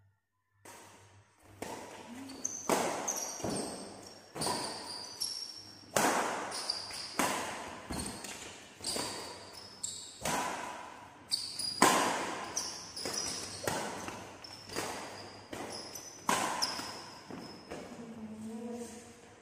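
Badminton rackets hitting a shuttlecock in a singles rally: a long run of sharp string hits about one a second, alternating louder and softer between the near and far player, each ringing briefly in the hall's echo. The rally stops shortly before the end, and a brief voice is heard.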